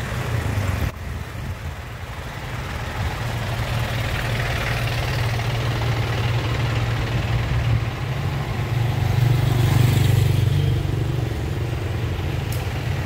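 Street traffic: motor vehicle engines running close by as motorcycles and cars pass. The engine noise swells to its loudest about nine to ten seconds in.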